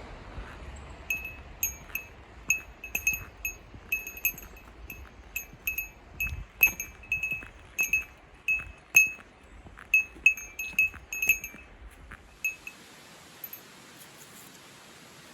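A small metal bell ringing in quick, irregular strikes at one steady pitch. It stops about twelve seconds in.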